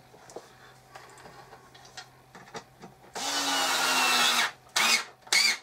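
Cordless drill-driver driving a screw into a flat-pack wall plate rack: about three seconds in the motor runs steadily for over a second, its pitch dropping slightly, then gives two short bursts near the end. Light handling clicks come before it.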